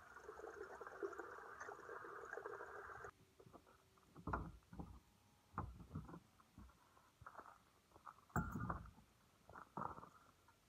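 Water running from a tube into a plastic bottle for about three seconds, then cutting off suddenly. After it, scattered knocks and thumps as a car's rear hatch area and swing-out spare-tire carrier are handled and closed.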